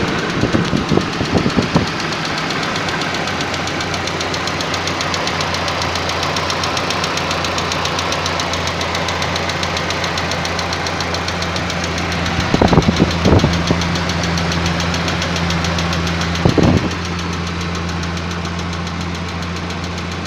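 Warm 16-valve engine idling with a rapid, steady ticking from a hydraulic valve lifter: the tapping of a defective lifter. A few louder clattering knocks stand out briefly near the start and twice later on.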